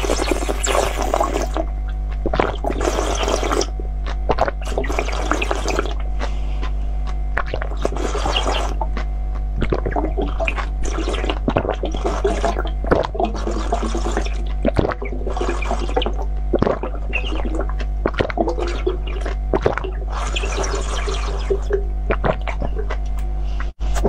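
Close-up slurping and gulping of liquid drunk from a clear glass-like vessel, in repeated noisy bursts every second or two with small sharp clicks, over a steady low hum.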